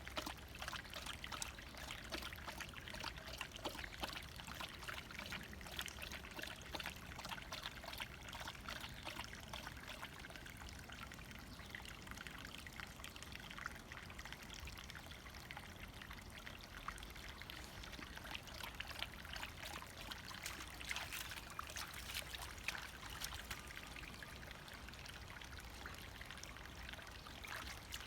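A small brook bubbling and trickling steadily, water running over stones with constant fine splashing and gurgling.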